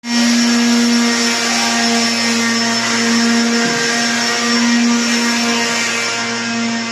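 Electric power tool motor running at steady full speed, a loud, even whine.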